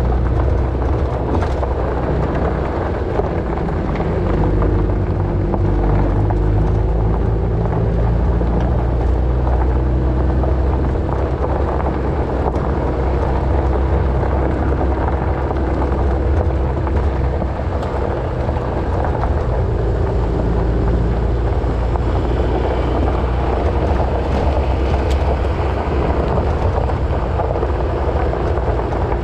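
Off-road vehicle driving on a gravel track: steady engine drone under tyre and gravel noise, with wind buffeting the microphone.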